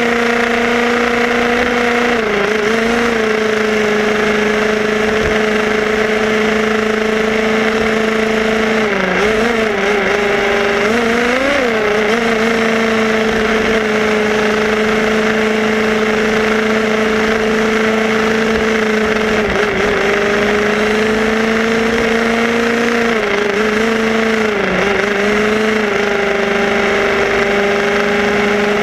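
The small two-stroke petrol engine of an HPI Baja 5B SS RC buggy, heard from on board, running at a steady cruising speed with road and wind hiss beneath it. Its note dips and rises briefly with throttle changes about a third of the way in and again near the end.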